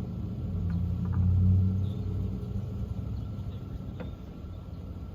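A low rumble that swells to its loudest about a second and a half in, then eases off, with a few faint clicks.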